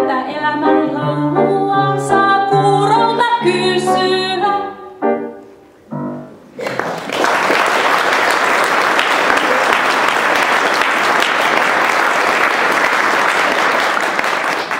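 A woman's voice sings the closing phrases of a song with piano accompaniment, the last notes dying away about five seconds in. About seven seconds in, an audience breaks into steady applause.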